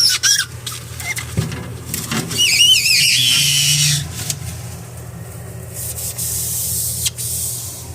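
High, wavering squeaks of plastic being rubbed inside a refrigerator as it is cleaned, loudest a couple of seconds in, then a softer rubbing hiss.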